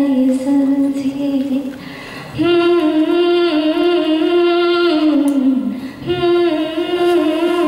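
A woman singing a Hindi song solo into a microphone, holding long drawn-out notes with a slight waver, in three held phrases with short breaks about two and six seconds in.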